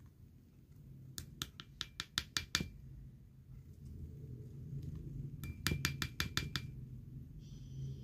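Two quick runs of light clinks, about seven each, as a plastic spoon knocks against a small glass bowl while cream is squeezed onto it from a tube.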